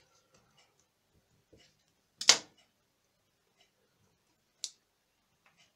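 Small ticks of handling, then a loud clack of a metal kitchen knife against a granite countertop about two seconds in, with a short ringing tail. A second, shorter and sharper click follows a couple of seconds later.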